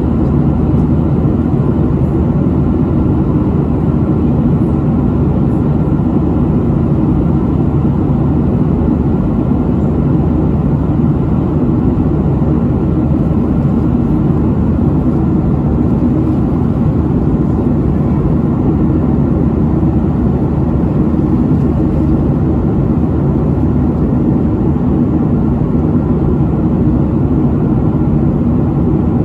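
Steady low cabin noise of a Southwest Airlines Boeing 737 in flight: jet engines and rushing air heard from inside, at an even level throughout.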